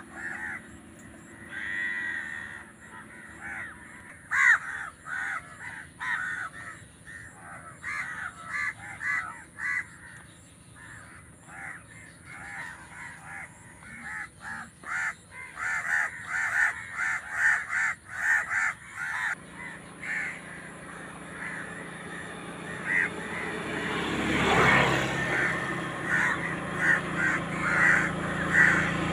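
Crows cawing over and over, in quick runs of short calls. A low motor hum builds up over the last few seconds.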